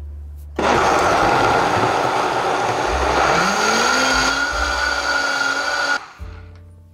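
Countertop blender puréeing roasted butternut squash with milk. It switches on suddenly about half a second in, runs loud and steady at full speed with its motor pitch rising and then holding about halfway through, and cuts off abruptly about a second before the end.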